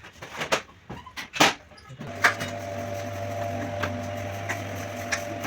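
A few sharp knocks, then about two seconds in a split AC indoor unit's blower starts running with a steady hum and occasional light ticks.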